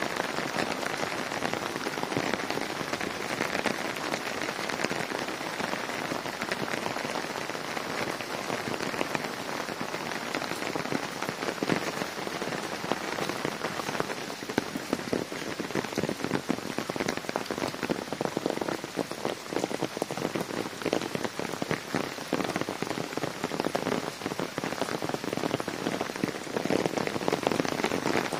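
Snow falling thickly onto apple tree leaves and wet ground, a steady patter of many small hits.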